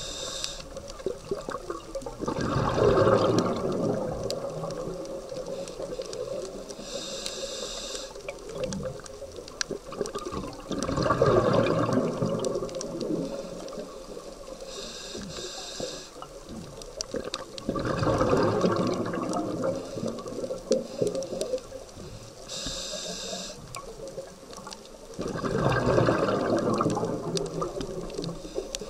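Scuba diver breathing through a regulator underwater: a short hiss on each inhale, then a louder rush of exhaust bubbles lasting two to three seconds. Four breaths, about seven to eight seconds apart.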